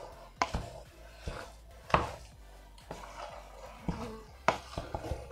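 Wooden spatula stirring a thick stew of leafy greens in a stainless steel pot, knocking against the pot about eight times at irregular intervals, the loudest knock about two seconds in, with soft scraping between.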